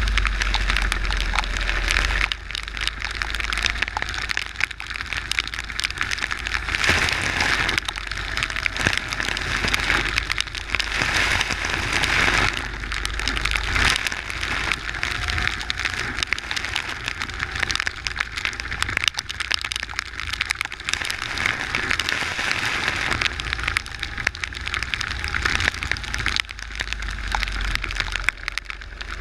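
Wind and rain spray crackling and rushing over a kart's onboard camera on a wet track, with the kart's engine faintly heard underneath as tones that rise and fall.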